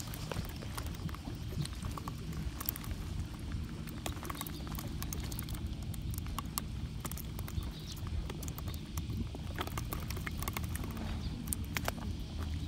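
Scattered light clicks and taps of a sabiki fishing rig and line being handled on the concrete, over a steady low rumble.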